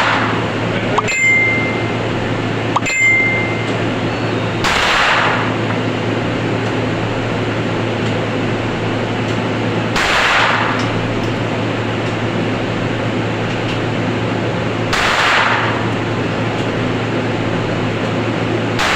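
Gunshots at a shooting range, one about every five seconds, each with a short echoing tail, over a steady hum. In the first three seconds come two sharp clicks, each followed by a brief high ring.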